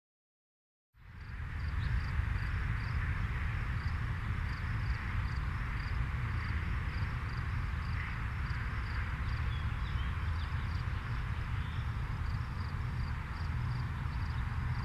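Outdoor ambience fading in about a second in: a steady low rumble under a hiss, with an insect chirping in an even rhythm high above it.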